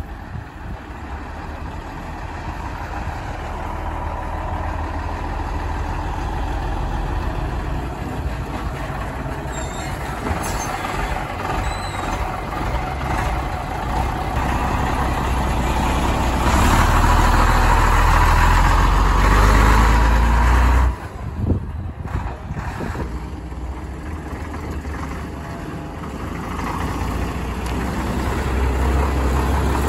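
Heavy diesel engines of classic commercial vehicles driving past close by. A six-wheel tipper truck's engine rumble grows louder to a peak and cuts off suddenly about two-thirds of the way through. Then a vintage single-deck bus's engine approaches near the end.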